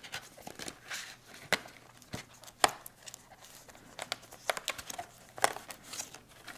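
Plastic packaging crinkling and rustling as a replacement lithium-ion battery is unwrapped by hand, with irregular sharp clicks and crackles.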